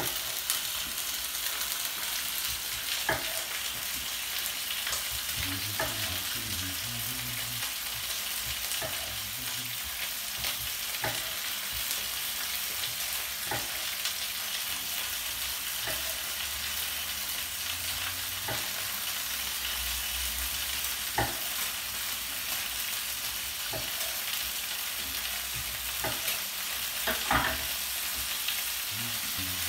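Cod fillets sizzling steadily in olive oil in a frying pan, with a knife knocking on a wooden chopping board every two to three seconds as cherry tomatoes are sliced.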